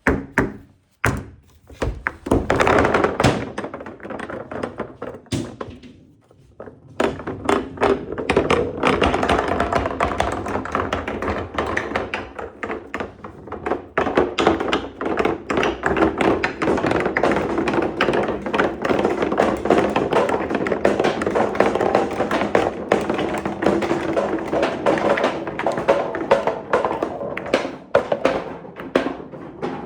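Marbles rolling and clacking through a marble run's transparent pipes and wooden pieces: a rapid, dense stream of knocks and taps over a steady rolling rumble, with a short lull about six seconds in.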